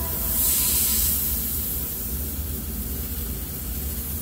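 Airbrush spraying paint, a steady hiss of air that is loudest about half a second in, over a low steady hum.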